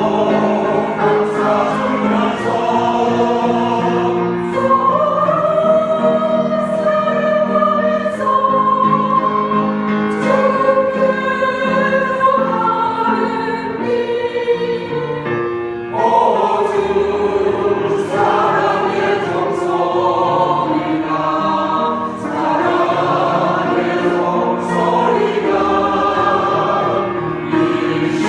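A choir singing a gospel hymn in several voice parts, holding long notes that change every second or two.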